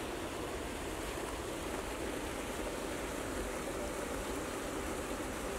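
River water spilling steadily over a low concrete weir, a constant rushing roar of falling water.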